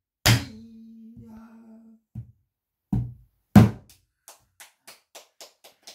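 Pansori buk barrel drum played with the bare hand. A heavy stroke comes first, then a few spaced strokes, and then a run of light, quickening taps in the last two seconds.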